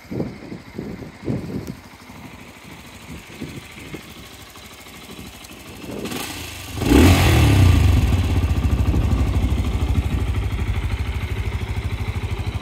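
Some knocks and handling noise, then a Benelli Leoncino 125 motorcycle's single-cylinder engine is started about seven seconds in. It revs briefly and settles into a steady, evenly pulsing idle.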